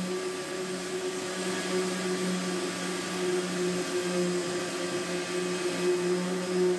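Electric sander with a shop-vacuum dust extraction hose, running on a fibreglass boat hull's gel coat: a steady motor hum and airy hiss, the hum wavering as the tool is worked against the surface.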